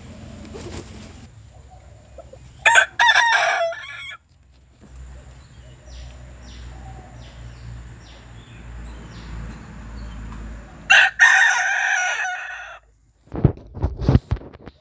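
Bantam rooster crowing twice, each crow about a second and a half long, several seconds apart. A few dull thumps follow near the end.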